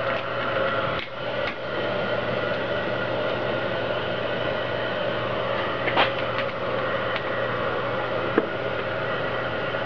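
Electric heat gun running steadily, its fan blowing with a low hum as it heats the tint film, with a few light clicks and taps from handling the film.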